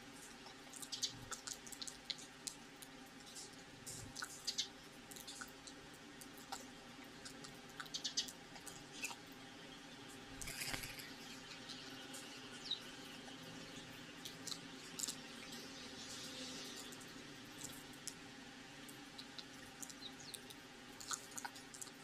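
Eurasian tree sparrows pecking seed from plastic cups: many quick, light, irregular clicks and taps of beaks and feet on the plastic. An occasional short chirp comes through, and there is a brief scuffle about halfway.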